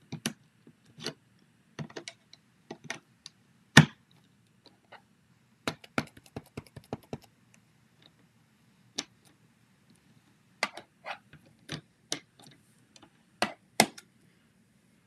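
Irregular light clicks and taps of stamping supplies being handled on a craft desk, with a quick run of small taps about six seconds in and a few sharper knocks, the loudest about four seconds in and near the end.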